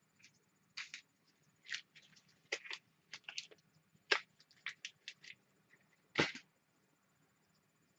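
Light, irregular clicks and rustles of a keyboard cable and small plastic adhesive cable clips being handled, the loudest two clicks about four and six seconds in.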